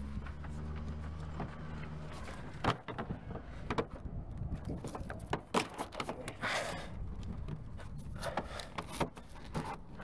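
Scattered clacks, knocks and short scrapes of hard vinyl fence parts being handled and fitted together. A low engine hum is heard under the start and stops about a second and a half in.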